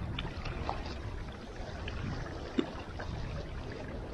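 Small waves lapping and splashing against a rocky shoreline, with wind rumbling on the microphone.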